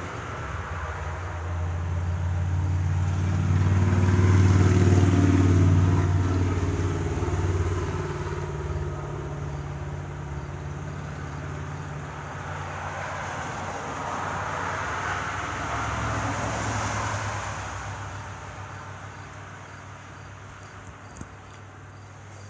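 A passing vehicle's engine drone that swells to its loudest about five seconds in and fades. It rises a little again around sixteen seconds and then dies away.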